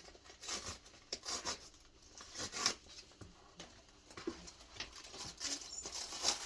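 Mail package being torn and rustled open by hand: irregular scratching and tearing sounds.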